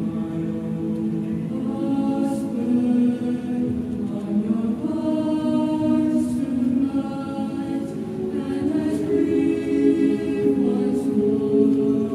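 Mixed high school chamber choir singing a cappella: slow, sustained chords, with soft hissed 's' consonants here and there.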